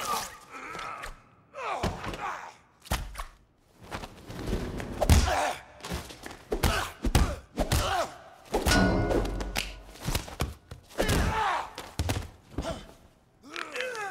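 Movie fight sound effects: a fast string of punch and body-blow impacts, thuds and smacks, with short grunts between them.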